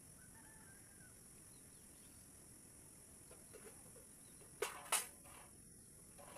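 Steady high chirring of field insects, with two sharp cracks about a third of a second apart a little over four and a half seconds in.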